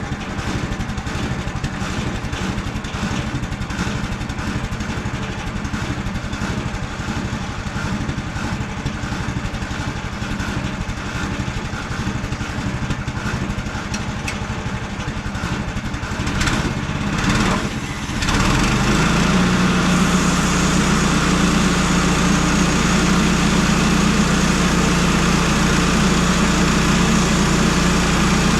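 Portable bandsaw mill's gasoline engine idling as it warms up, then throttled up about seventeen seconds in to a louder, steady run.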